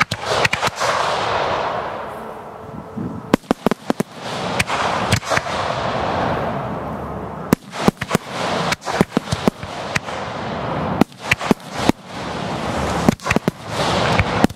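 Fireworks display firing: sharp bangs come in quick clusters, and a rushing hiss fills the gaps between them as the lit fireworks rise.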